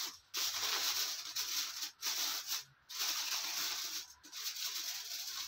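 Aluminium foil crinkling and crackling as it is pressed and crimped around the rim of a baking dish, in four or five bouts with short pauses between.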